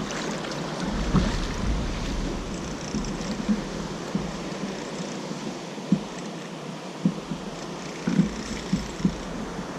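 Sea water lapping against a fishing kayak, with wind on the microphone and a scatter of light knocks on the boat.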